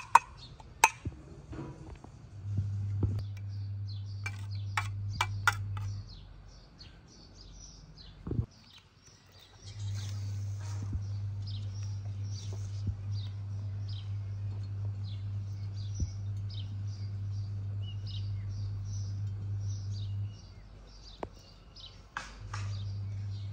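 Small birds chirping repeatedly over a steady low hum that cuts out and comes back several times. A few sharp clicks come near the start.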